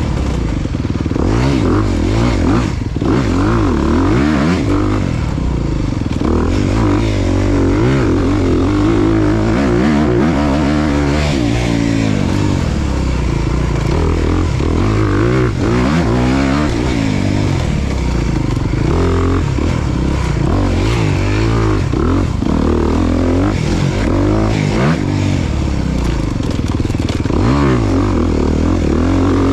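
Off-road racing motorcycle engine running hard as the bike is ridden, its pitch rising and falling every second or two with throttle and gear changes.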